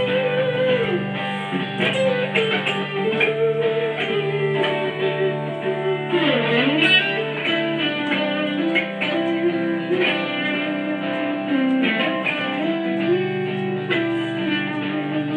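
Electric guitar playing a slow melody whose notes slide and bend up and down in pitch, over a steady low drone.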